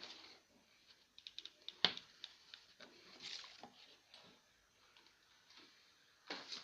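Faint handling sounds of cardboard pieces and a glue gun on a work surface: scattered light clicks and rustles, with one sharper tap about two seconds in and a louder rustle near the end.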